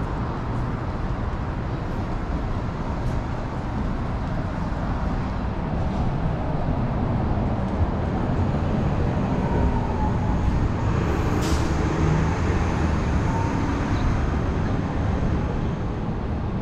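City street traffic: a steady rumble of engines and tyres that swells through the middle, with a short high hiss about eleven seconds in.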